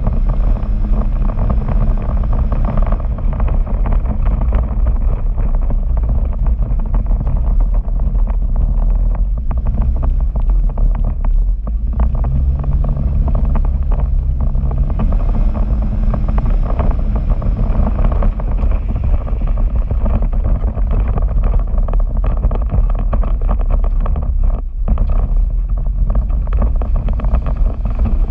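Arctic Cat Wildcat Sport 700 side-by-side's engine running as it drives over a rocky creek bed, its note shifting now and then with the throttle. Wind buffets the microphone throughout.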